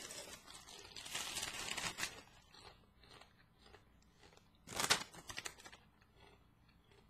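Kettle-cooked potato chips being crunched and chewed, with a brief, louder crackle of the foil chip bag being handled just before five seconds in.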